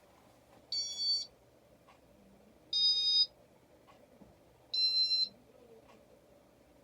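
Casablanca Inteli-Touch ceiling fan control beeping: three electronic beeps, each about half a second long and about two seconds apart. The beeps mark the fan stepping through its modes in demo mode.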